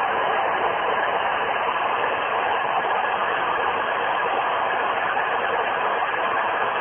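11 m CB radio receiver giving out steady static hiss from its speaker, with no station coming through.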